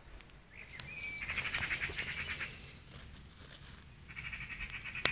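A bird calling: a short whistled note, then a fast chattering trill lasting about a second and a half, and a second chatter near the end. A sharp click comes just before the end.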